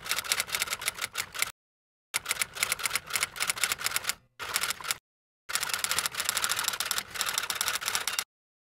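Typing sound effect: rapid key clicks that run alongside on-screen text being typed out letter by letter. They come in three runs with short pauses between and stop shortly before the end.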